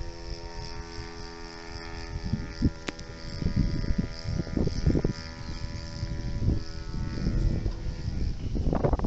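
Steady, even-pitched drone of the radio-controlled tow plane's motor high overhead while it pulls a glider aloft, fading over the last couple of seconds. Gusts of wind rumble on the microphone throughout, growing stronger near the end.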